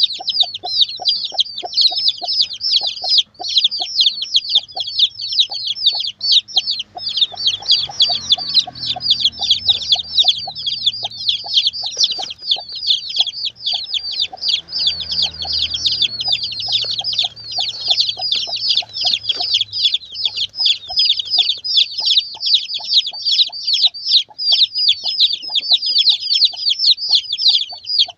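A brood of young chicks peeping without a break, a dense chorus of high, falling peeps. Underneath, the mother hen clucks in short, low, evenly repeated notes, about two or three a second, pausing now and then.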